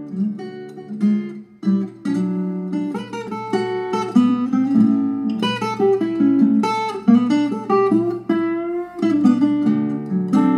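Outro music played on acoustic guitar, with notes picked and strummed in a steady run.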